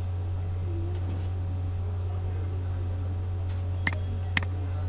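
Two computer mouse clicks, about half a second apart, near the end, over a steady low hum.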